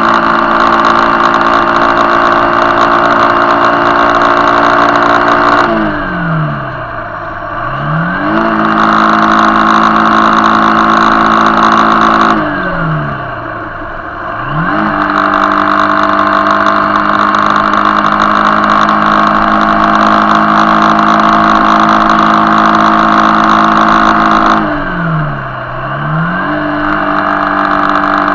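Motorcycle engine running steadily at a cruising pitch, heard from the rider's seat. Three times the engine note drops away and quietens, then climbs back to the cruising pitch.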